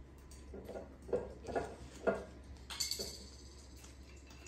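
Glass liquor bottle and plastic fittings being handled on a countertop: a few light clinks and knocks, then a brief scratchy rustle about three seconds in as a fitting is pressed onto the bottle's top.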